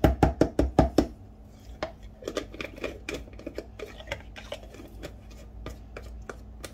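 A metal spoon knocking quickly against a plastic mayonnaise jar, about eight sharp raps in the first second, followed by softer scraping as mayonnaise is scooped out.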